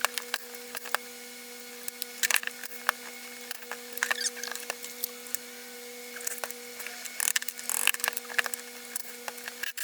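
Irregular clicks, taps and knocks of hand tools and metal parts as an electric demolition hammer is taken apart, over a faint steady hum.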